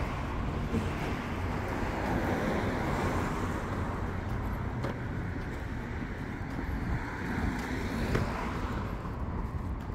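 Road traffic: a steady wash of cars going by, swelling and easing slowly, with a few faint clicks.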